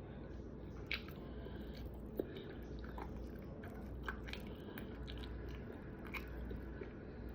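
A person chewing food close to the microphone, with scattered wet mouth clicks over a steady low hum.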